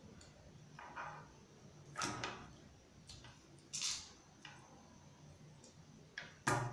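Faint handling sounds: a few scattered small knocks and scrapes as wooden craft sticks wrapped around a glass bottle are pressed and handled on a tabletop, the sharpest knock near the end.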